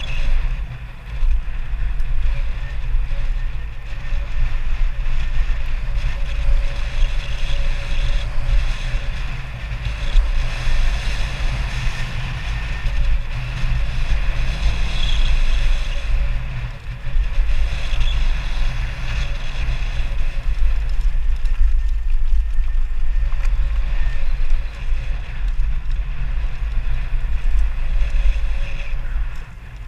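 Steady deep wind rumble on the camera's microphone, mixed with tyre and drivetrain noise from a mountain bike riding fast down a dirt trail.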